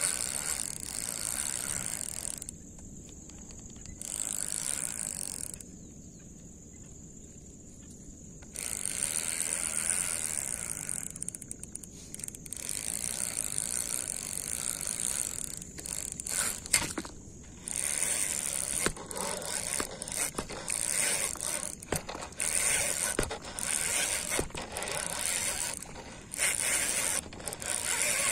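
Fishing reel being cranked to retrieve a lure: the handle is turned in stretches of a few seconds with pauses between them, then in shorter spurts of about a second over the second half.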